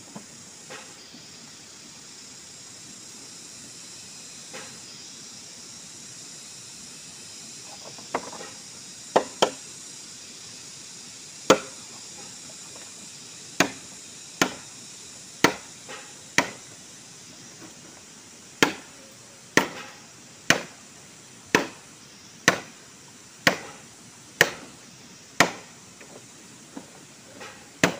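Machete blade striking a green bamboo pole, sharp single chops about once a second, starting about a third of the way in and turning to lighter taps near the end. A steady high hiss sits underneath.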